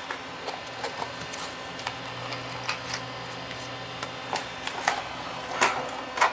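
Irregular light clicks and taps of small tools and parts being handled, with a few louder clicks in the second half.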